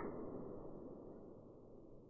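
The reverberation of a rifle shot dying away steadily in an indoor shooting range, with one short sharp click right at the beginning.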